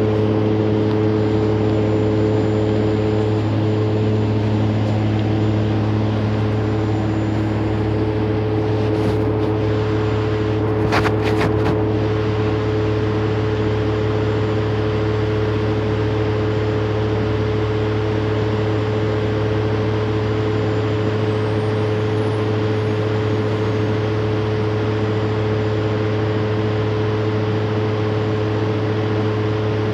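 Vehicle engine idling with a steady low hum and a few constant tones, heard from inside a stopped vehicle's cab. A short cluster of clicks comes about eleven seconds in.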